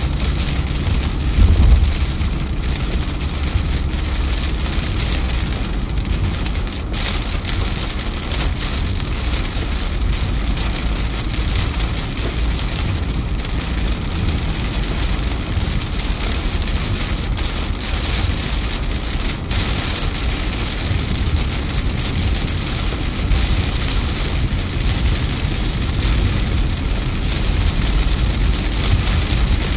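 Heavy rain falling on a car's windscreen and roof, heard inside the cabin over the steady low rumble of tyres on a wet road, with a brief louder bump about a second and a half in.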